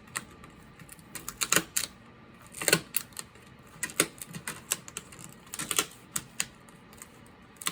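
Irregular crackling and sharp clicks as a pry tool works a glued laptop display panel loose, the adhesive tape tearing away from the panel.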